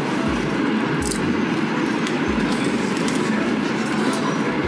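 Steady running noise of a Frecciarossa high-speed train heard from inside the passenger car, with a low rumble and soft thumps recurring about once a second. A few faint short crackles sound over it.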